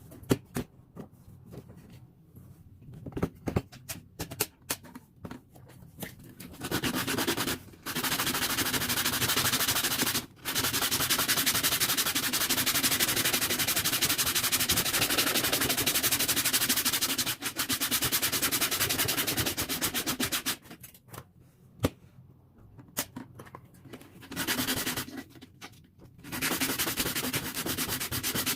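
An abrasive power tool sanding or grinding the metal of an agricultural fork. It runs in a long stretch from about seven seconds in, with brief breaks, and stops at about twenty-one seconds. Clicks and knocks of the work being handled come before it and in the pause, and the tool starts again near the end.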